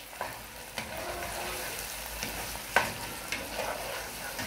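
Thick tomato and pepper sauce sizzling as it fries in a pan, while a spoon stirs chunks of smoked fish and stockfish through it. A few scrapes and knocks of the spoon against the pan sound over the steady hiss, the sharpest a little before three seconds in.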